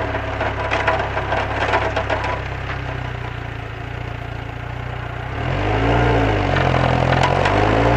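Lotus Elise S2 sports car engine running at a steady pitch with a rattling clatter over it. About five seconds in the revs rise and fall once, then climb steadily as the car accelerates.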